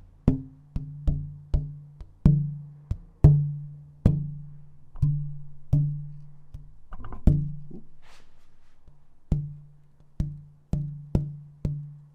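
Pieces of burled wood struck one after another to find their tune: about twenty sharp knocks at an uneven pace, each leaving a short low ringing tone that dies away. The ring sits at the pitch he names as D.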